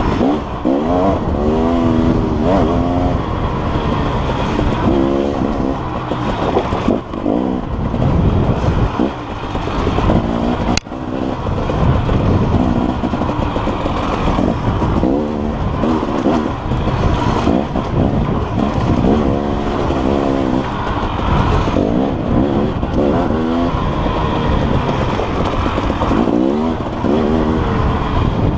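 KTM dirt bike engine revving, its pitch rising and falling every second or two as the throttle opens and closes on rough singletrack, heard close-up from the rider's own bike.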